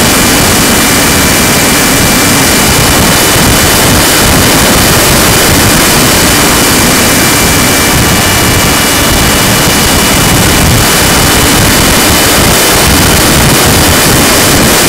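RC plane's motor running with a constant high whine under loud, steady rushing wind noise on the microphone.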